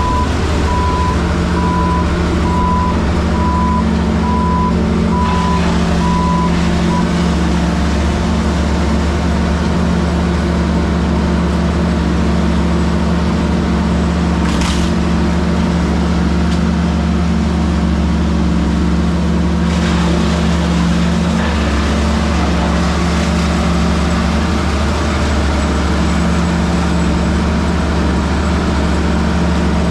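Heavy machinery engine running steadily at a constant speed on a tree-removal job. A backup alarm beeps evenly for the first several seconds, then stops.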